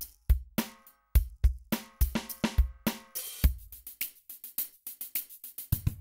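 Background music with a drum-kit beat of kick drum, snare and hi-hat, with a few short melodic notes over it.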